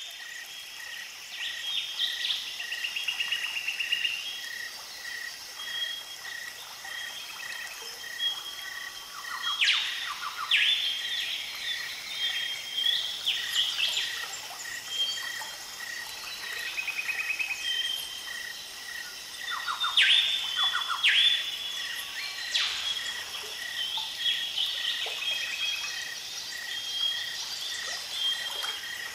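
Birdsong ambience: several birds chirping and whistling, over a steady chirp repeated about one and a half times a second. A few louder calls sweep downward in pitch now and then.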